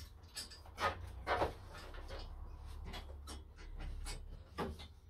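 Irregular metallic clicks and knocks as throttle bodies and their fixings are handled and fitted onto the intake manifold studs, the two loudest about a second and a second and a half in, over a steady low hum.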